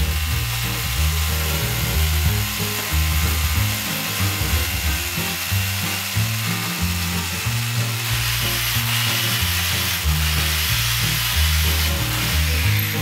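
Hammer drill running steadily, its masonry bit grinding a hole into a granite wall panel, with background music underneath.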